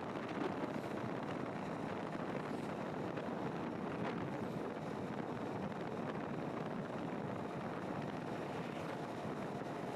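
Steady road and wind noise from a moving vehicle, with wind buffeting the microphone.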